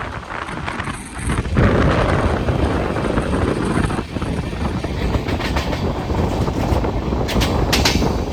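Passenger train running on the rails, its wheels clattering over the rail joints. The noise gets louder about one and a half seconds in, and a few sharp clicks come in the second half.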